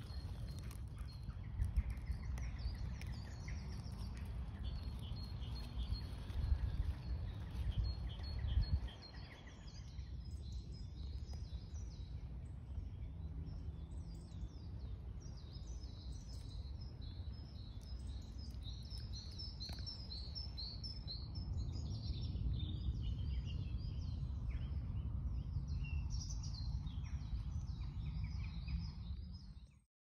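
Woodland birds singing, a dense mix of high chirps and trills that grows busier after about ten seconds, over a low rumble that is heaviest in the first nine seconds.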